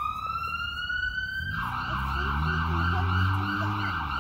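Emergency vehicle siren. It climbs in a slow wail, then switches about a second and a half in to a fast warbling yelp, with a low drone underneath during the yelp.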